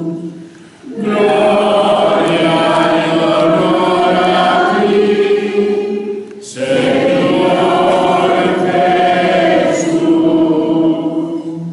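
A choir singing in two long phrases, with a short break about six seconds in.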